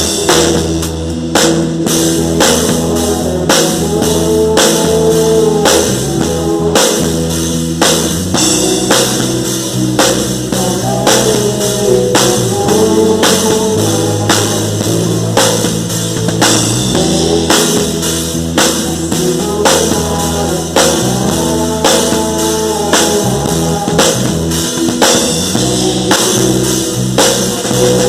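Live gospel band playing an instrumental passage: a drum kit keeps a steady beat under bass and electric guitar.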